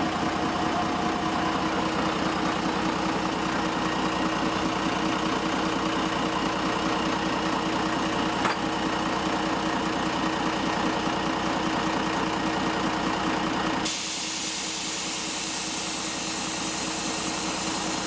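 Underfloor diesel engine of a VT 2.09 railbus idling with a fast, even beat. There is a single sharp click about eight seconds in. Near the end a steady high hiss sets in abruptly over the idle.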